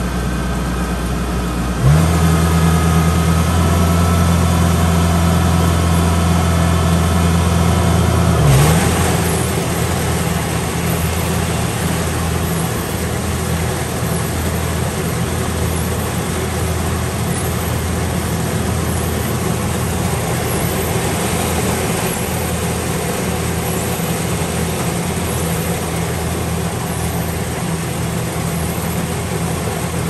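Rice harvester's engine running continuously. A couple of seconds in it gets louder, with a steadier note, for several seconds, then settles back to its earlier level.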